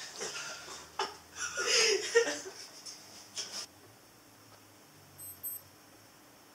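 Men giggling and laughing in short breathy bursts that stop about three and a half seconds in, leaving quiet room tone.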